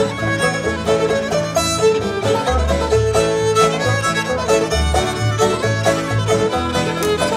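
Old-time string band playing an up-tempo fiddle tune: the fiddle leads over clawhammer banjo, with acoustic guitar and upright bass keeping the beat.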